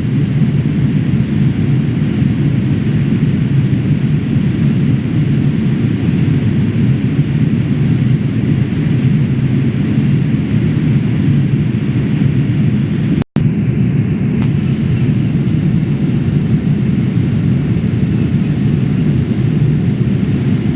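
Steady cabin noise of a Boeing 787-8 airliner in flight: a deep, even rush of engines and airflow heard from inside the cabin. It is broken once by a split-second gap a little past the middle.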